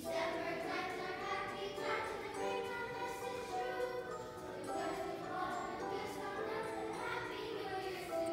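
Children's choir singing a song, the voices coming in together at the very start.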